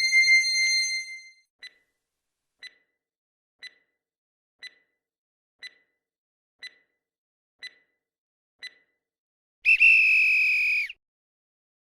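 Quiz countdown timer sound effect: a chime rings out and fades, then eight short ticks about one a second, then a steady electronic alarm tone for just over a second as time runs out.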